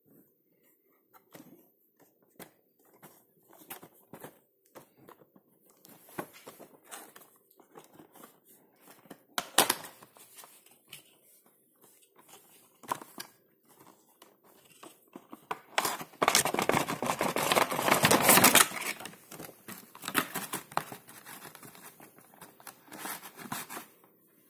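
A cardboard Funko Pop window box being handled and opened by hand: scattered taps, scrapes and rustles of cardboard, with a louder stretch of rustling and crinkling lasting about three seconds two-thirds of the way in as the clear plastic insert is worked out of the box.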